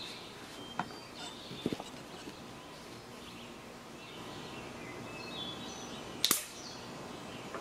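Quiet outdoor ambience with faint high chirps and a few light clicks. About six seconds in, a short sharp pop of air as the floor pump's head is pulled off the valve of a tire pumped to 120 PSI.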